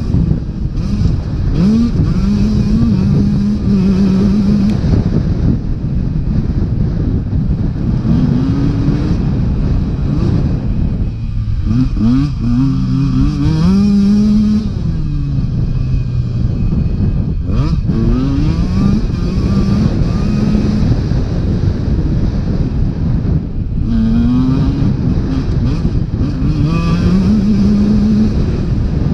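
Dirt bike engine under hard throttle, revving up and shifting repeatedly: the pitch climbs, then drops back at each gear change. Heavy wind rush on the helmet-camera microphone runs underneath.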